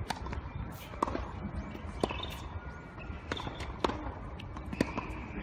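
Tennis rally: sharp pops of racket strikes and ball bounces, about once a second.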